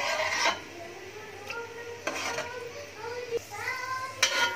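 Steel spoon stirring and scraping raisins frying in hot oil in an aluminium pot, with a couple of sharp clinks of spoon on pot near the end. A high, child-like voice is heard faintly in the background.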